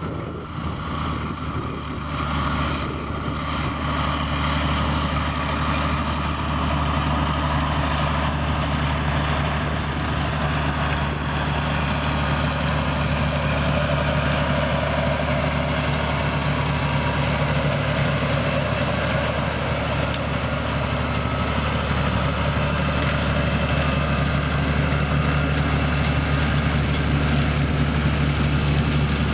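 Cat Challenger MT865B tracked tractor's 510 hp Caterpillar C18 six-cylinder diesel running steadily under load as it pulls a 6.6 m Super Simba press disc cultivator through stubble. It grows louder over the first few seconds as the tractor approaches, then holds a steady drone.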